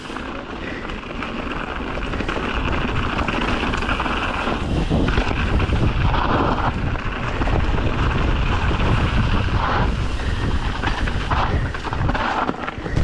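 Wind rushing and buffeting over the microphone of a mountain bike riding down a dirt trail, a heavy low rumble that builds over the first few seconds and drops away at the very end.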